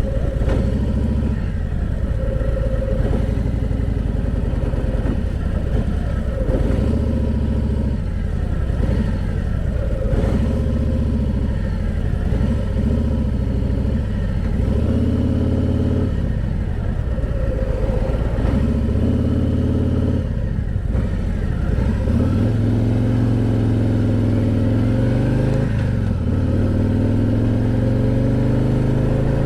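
A 2014 Harley-Davidson Ultra Classic Limited's V-twin engine running on the road, its pitch rising and falling repeatedly with changes in speed, then holding steadier near the end.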